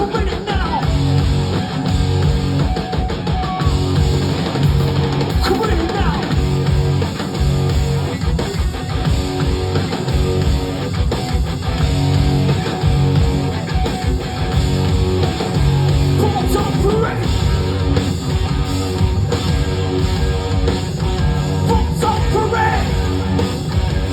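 Live heavy rock band playing an instrumental stretch at full volume: distorted electric guitar riffing over bass and a pounding drum kit, with a few short guitar squeals.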